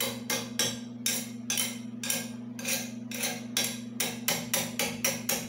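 Hand tool scraping or filing metal on an air compressor's belt pulley: rhythmic strokes about three a second, worked into the out-of-round pulley to lessen its wobble, over a steady low hum.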